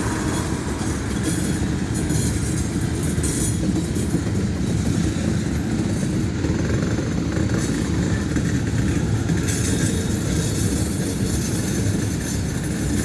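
Freight train cars rolling past in a steady low rumble of wheels on rail.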